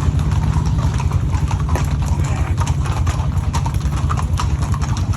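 Hooves of many horses clip-clopping in a dense, irregular stream of sharp clicks, over a steady low rumble.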